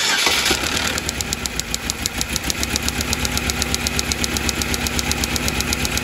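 2008 Chevrolet Cobalt's 2.2 L Ecotec four-cylinder engine being cranked over, with a spark tester in place of cylinder two's plug to check for spark. It sets in suddenly and keeps a fast, even rhythm of sharp ticks over a steady hum.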